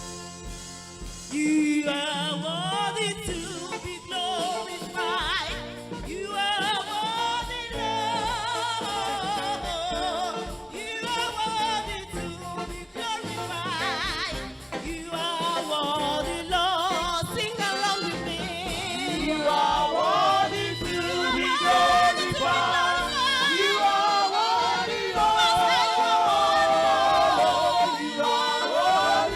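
Gospel singing with instrumental accompaniment, voices carrying a wavering melody with vibrato, growing a little louder in the second half.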